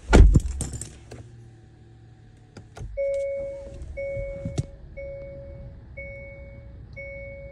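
A car's dashboard warning chime dinging about once a second, five times, over a low steady hum in the cabin of a Hyundai Santa Fe. A couple of loud knocks come just before, in the first second.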